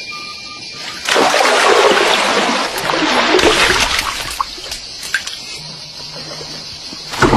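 Water splashing and trickling, loudest for a few seconds after about a second in, then softer, with a fresh loud splash near the end.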